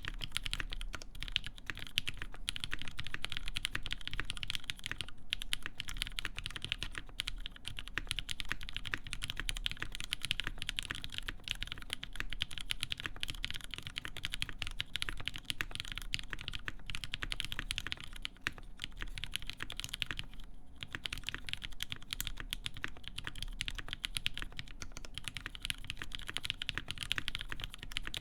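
Steady fast typing on a mechanical keyboard with lubed linear Cherry MX Black switches in a full aluminum plate, under GMK keycaps: a dense run of keystroke clacks with a short pause about twenty seconds in.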